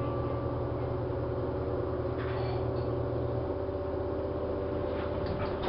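LG washing machine running through a wash with a blanket inside: a steady motor hum with a couple of steady tones over it. The lowest part of the hum changes about halfway through, and there are a few brief rustling knocks near the middle and near the end.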